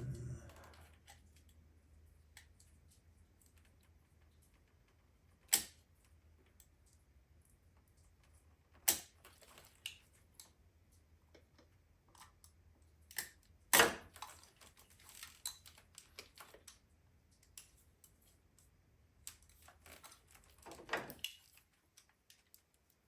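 Hard plastic wire sheathing being cut and cracked off injector wires by hand: scattered small clicks and ticks, with a few sharp snaps of the brittle plastic, the loudest about five, nine and fourteen seconds in.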